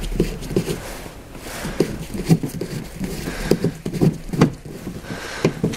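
Irregular clicks and knocks, a few a second, as a small screw is worked out of the grip recess of a VW Golf 5's plastic tailgate trim, with the tool and gloved fingers knocking against the hard plastic.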